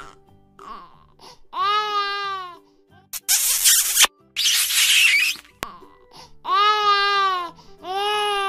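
Crying sound effect: a voice wailing in drawn-out, baby-like sobs, about three cries a second or so long, with two loud hissing bursts in the middle. Faint background music runs under it.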